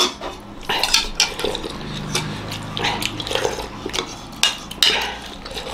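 Metal spoons and forks clinking and scraping against soup bowls as several people eat, in short irregular clicks.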